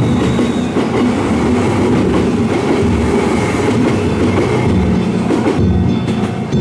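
A Kintetsu Minami-Osaka Line train running past over a level crossing, its wheels clattering on the rails. The loud rushing noise drops away about five and a half seconds in.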